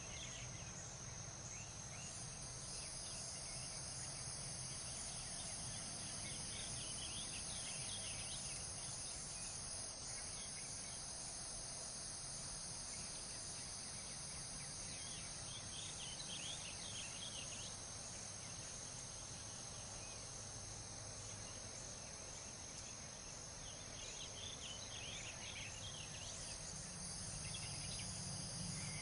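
Faint outdoor night ambience: a steady, high-pitched chorus of crickets over a low, steady rumble. A few brief higher chirping flurries come and go.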